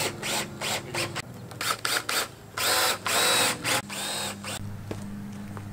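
Cordless drill driving screws into wooden framing boards: several short runs, then two longer ones a little past halfway, each spinning up in pitch as the screw goes in.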